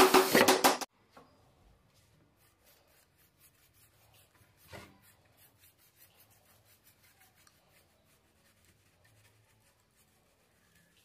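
Cordless drill running into pine, a steady whine with a rapid clatter, cutting off abruptly about a second in. After that, faint scratchy strokes of a brush applying stain to the pallet-wood pot, with one soft knock about five seconds in.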